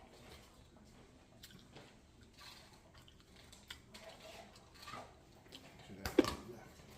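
Quiet eating sounds: soft chewing with small wet mouth clicks. About six seconds in there is one brief, much louder clatter.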